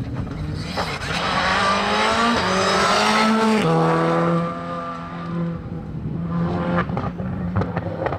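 Škoda Fabia rally car's 1.6-litre turbocharged four-cylinder engine at full throttle, its note climbing in pitch and dropping twice with quick upshifts, then holding a steadier note as the car pulls away. A few sharp cracks come near the end.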